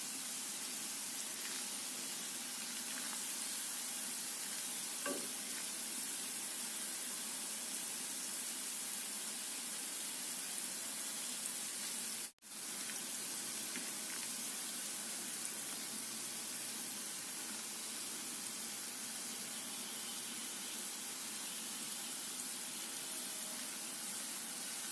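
Bread gulab jamun balls deep-frying in hot oil in an iron kadai: a steady sizzle, with a slotted spoon now and then stirring them. The sizzle cuts out for an instant about halfway through.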